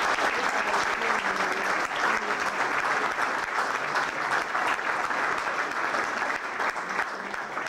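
Audience applauding: a roomful of people clapping steadily, with a few voices faintly underneath.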